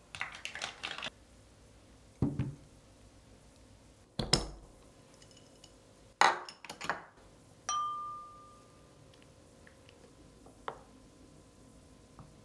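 A glass jar with a rubber-sealed glass lid being handled on a wooden table: a few knocks and clicks of glass being set down and the lid worked loose, then a clink that rings on for about a second, followed by a few faint ticks of a wooden spoon in the jar.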